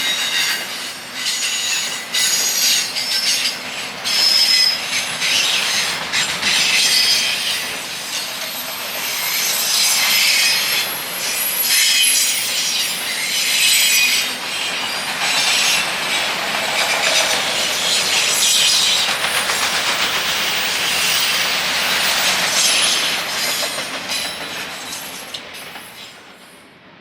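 Train rolling past, its wheels squealing in high, wavering tones over a steady rumble and repeated clicks of wheels crossing rail joints. It fades away over the last few seconds.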